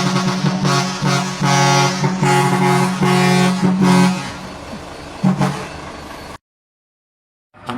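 Large four-foot air horns sounding a rhythmic run of short, deep blasts, about six in the first four seconds, then weaker. The sound cuts off abruptly about six seconds in, leaving a second of silence.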